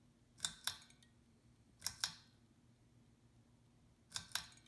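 Steady low hum from the magnetic ballast of a Westinghouse 13 W preheat fluorescent adapter running a black-light bulb. Three pairs of sharp clicks come over it, each pair about a quarter second apart, roughly every second and a half.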